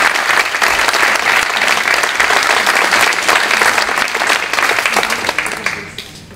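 Audience and panel applauding, a dense clapping that dies away near the end.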